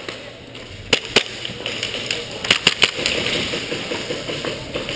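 Airsoft gunfire: sharp single cracks, two about a second in, then a quick cluster of four about two and a half seconds in, over steady rustling of movement.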